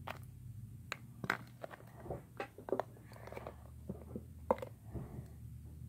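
Glue squeezed from a plastic squeeze bottle into a plastic bowl: faint irregular clicks and short soft sputters from the bottle and the pouring glue.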